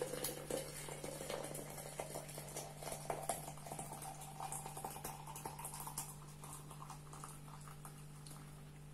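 Boiling water pouring from a kettle into a glass jug, a splashing stream whose tone rises steadily in pitch as the jug fills, easing off near the end.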